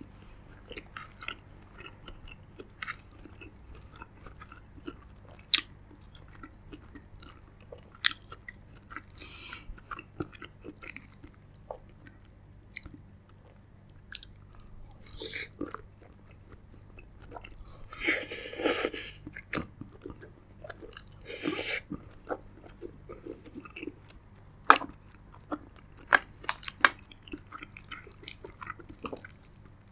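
Close-up eating sounds of a person chewing a mouthful of saucy, cheesy spaghetti with meatballs: wet mouth clicks and smacks throughout, with a few longer, louder slurps of noodles about halfway through and a little later.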